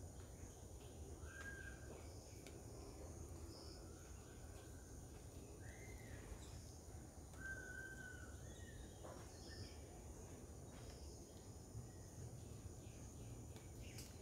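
Faint garden ambience: a few birds giving short whistled calls, scattered through, over a steady high insect drone.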